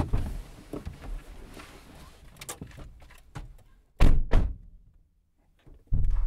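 Car doors clicking open and slamming shut as people climb out of a car, the heaviest thud about four seconds in. Near the end a steady low rumble sets in.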